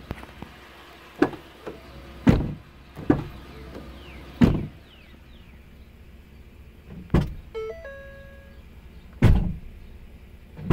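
About six loud clunks of a 2010 Ford F-150's door and door-latch hardware, spread unevenly over ten seconds. Twice near the end a clunk is followed at once by a short stepped electronic chime.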